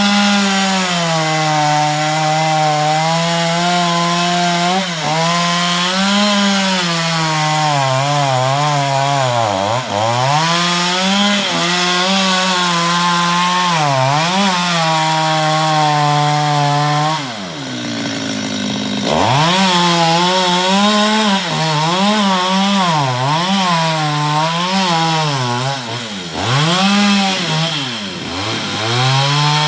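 Chainsaw cutting mango wood, its engine pitch sagging and recovering again and again as it bogs in the cut. About 17 seconds in it drops back toward idle for a moment, then revs up again.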